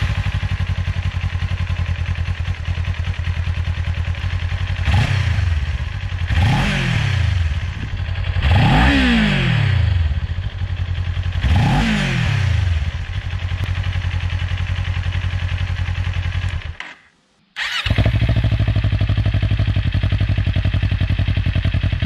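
Kawasaki Ninja 400's 399 cc parallel-twin engine idling through its stock exhaust and blipped four times, each rev rising and falling within a second or so, the third held a little longer. After a short break about seventeen seconds in, it idles again, a little louder, through a LeoVince Factory S stainless steel full exhaust system with the dB-killer fitted.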